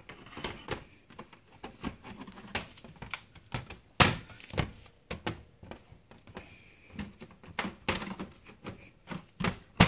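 Handling noise on a PC case: irregular clicks, knocks and rustles, with a sharp thunk about four seconds in and another near the end.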